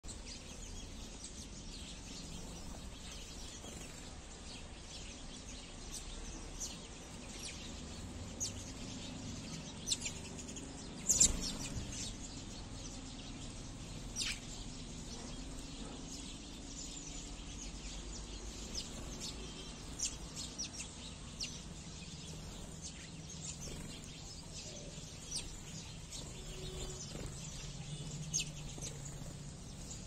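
A feeding flock of house sparrows chirping in short, scattered calls, with a sharp thump about eleven seconds in.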